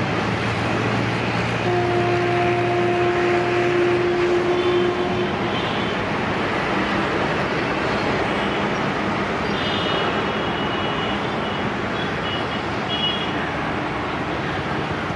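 Electric locomotive-hauled train running on the track: a steady rushing rumble, with a steady pitched hum for about three seconds starting about two seconds in.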